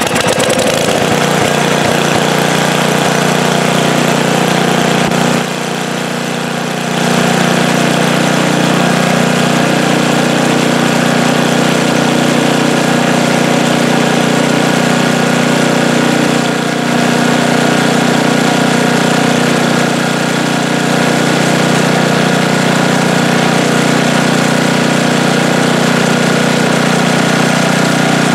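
Snow blower's small single-cylinder engine running steadily at speed, just after starting, with a brief dip about five seconds in. It holds an even speed without stalling or surging, the sign that the water-fouled fuel system, tank, lines and carburetor, has been cleaned out.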